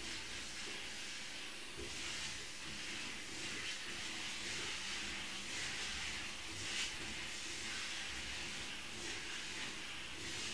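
Steady hiss, swelling slightly now and then, with no clear ringing tone or beeps.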